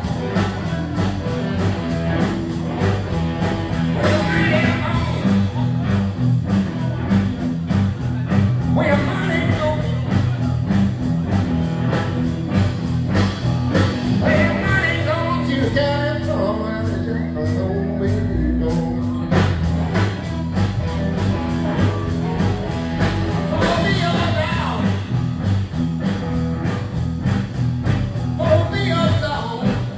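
Live blues band playing, with electric guitars over a steady driving beat and bending lead lines.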